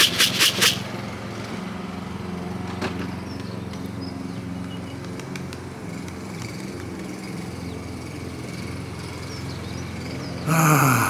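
Lawnmower engine running steadily with a low hum. A fast rhythmic rattle stops less than a second in, and near the end a short loud sound falls in pitch.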